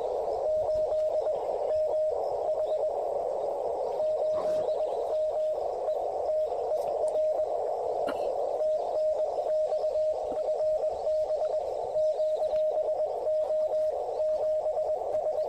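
Yaesu FT-817 transceiver playing a Morse code (CW) signal received on the 40-metre amateur band: a single mid-pitched tone keyed on and off in dots and dashes, with a few short pauses, over steady band hiss.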